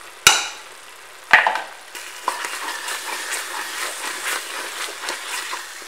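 Onion-tomato masala sizzling in oil in a pressure cooker as yogurt is stirred into it, with a crackling hiss and small scraping ticks. Two sharp knocks about a second apart come near the start.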